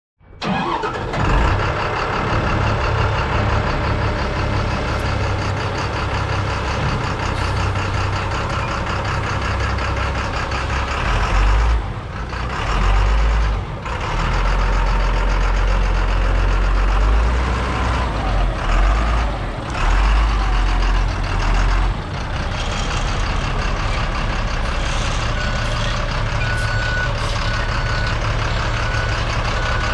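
Chevrolet Kodiak dump truck's engine running steadily, with a heavy low rumble that swells and drops. Near the end a backup alarm gives a string of short beeps.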